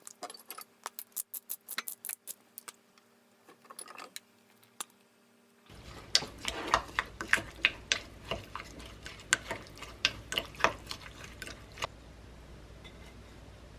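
Light clicks and taps of kitchen utensils against dishes over a faint steady hum. About six seconds in, the background gets louder and a busier run of clinks and knocks follows.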